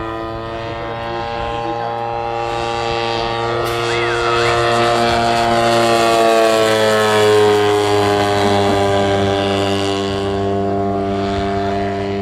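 Radio-controlled model biplane's engine and propeller running steadily in flight. The note dips slightly in pitch as the plane passes close, loudest just after the middle, then eases off a little.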